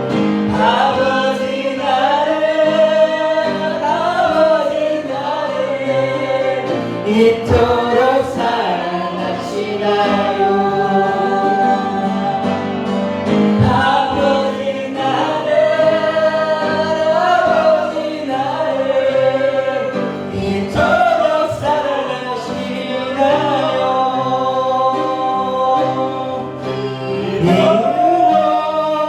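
Church worship singing: several voices together sing a slow gospel praise song over sustained musical accompaniment.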